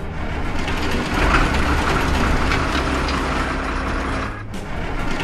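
Cartoon sound effect of truck engines running as a convoy of vehicles drives off, a steady low hum with a noisy rush over it.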